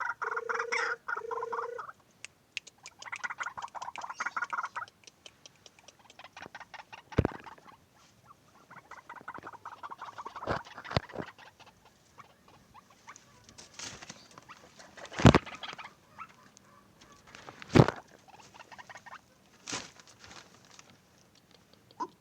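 White-breasted waterhens calling: a short series of repeated pitched calls that stops about two seconds in, then long runs of rapid ticking chatter. Several sharp knocks break in, the loudest about two-thirds of the way through.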